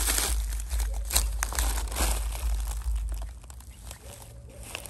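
Plastic litter and trash crinkling and crunching underfoot as someone walks through a rubbish dump, with a steady run of small crackles and dull low thuds; it gets much quieter a little over three seconds in.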